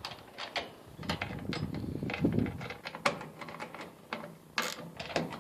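Metal clicks, knocks and rattles from a Craftsman steel rolling tool cabinet being handled, with a brief low rumble about two seconds in and a sharper click near the end.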